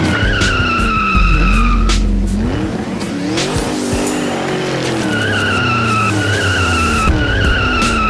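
Racing-car engine revving up and down again and again, with long tyre squeals near the start and through the second half.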